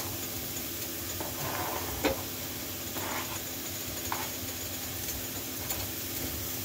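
Cut-up smoked sausage being scraped off a cutting board with a fork into a stainless steel skillet, with a steady light sizzle from the food heating in the pan. A few short clicks and scrapes of the fork come through, the sharpest about two seconds in.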